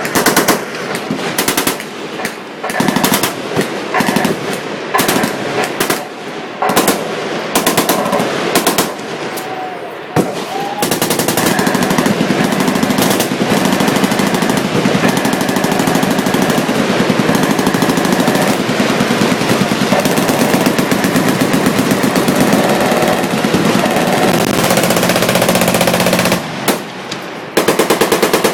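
Machine guns firing, several at once: short separate bursts for the first ten seconds or so, then a long stretch of unbroken, overlapping automatic fire that slackens briefly near the end before starting again.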